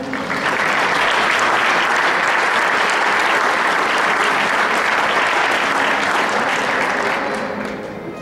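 Audience applauding: a steady round of clapping that builds about a third of a second in and dies down near the end.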